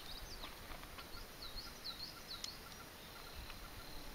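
Faint birdsong outdoors: a run of short, swooping chirps, repeated several times. About three seconds in, a faint steady high insect buzz begins, and there are a few soft clicks.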